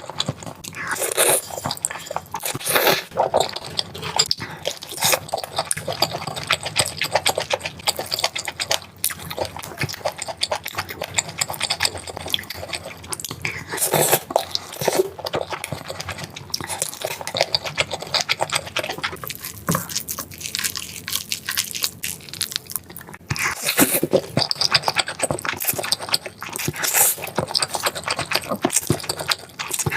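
Close-miked chewing and crunching of food, with a dense, irregular run of crisp crunches and biting clicks.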